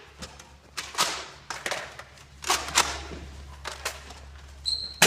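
Irregular sharp knocks and thuds, about ten in five seconds, from Nerf Rival foam balls being fired and striking surfaces during a blaster battle.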